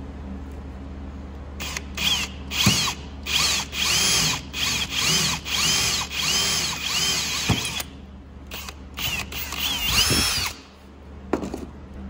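Hand drill with a 1/8-inch bit drilling a rivet hole through a metal door-latch release lever, run in a series of short bursts starting about two seconds in, the motor's pitch rising and falling with each burst. One more brief burst comes near the end.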